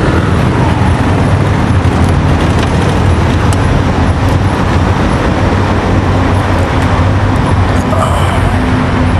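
Motor scooter running: a steady engine drone with road noise.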